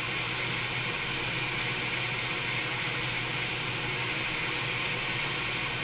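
Hot air rework station nozzle blowing a steady hiss of hot air at about 60% airflow, desoldering a laptop motherboard connector, with a low steady hum underneath.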